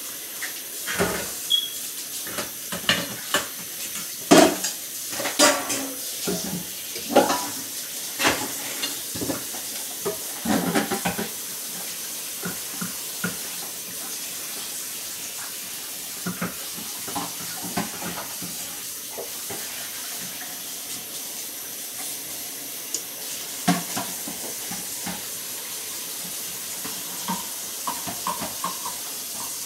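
Kitchen clatter: scattered sharp knocks and clinks of dishes and utensils over a steady hiss, busiest in the first ten seconds or so and picking up again in the second half.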